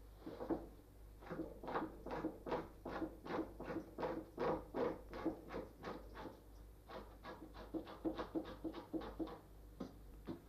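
Hand scraper working the flesh side of a red fox skin stretched on a stretching board, quick rasping strokes about three to four a second. This is the scraping stage, taking fat, flesh and connective tissue off the skin.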